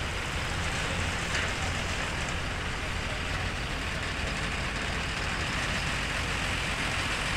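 Heavy trucks of a heavy-haul convoy running steadily, a constant low engine hum under broad road and traffic noise.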